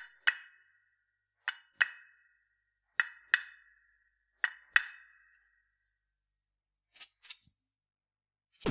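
Sparse experimental electronic music: pairs of short, pitched knocks that ring briefly, a pair about every second and a half, four pairs in all, followed by a few short hissing bursts near the end.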